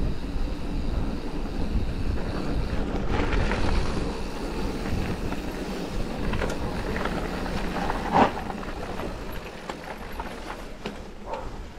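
Mountain bike riding along a dirt trail: wind on the chest-mounted camera's microphone over a steady low rumble of the tyres, with faint rattles of the bike and a short sharp sound about eight seconds in.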